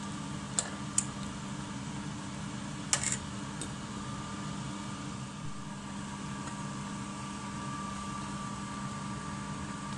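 A metal spoon clinks against a stainless steel pot of noodle soup three times in the first few seconds, over a steady mechanical hum.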